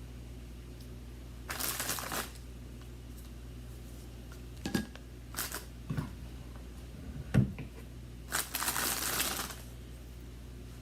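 Knife spreading peanut butter on Ritz crackers: two scratchy scraping bouts of about a second each, with a few light knocks of the knife and crackers on the counter between them.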